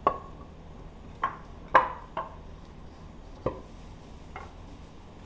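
Wooden boards knocking against each other as a stack of rough-sawn walnut boards leaning against the wall is sorted through by hand. There are about six separate wooden clacks, the loudest a little under two seconds in.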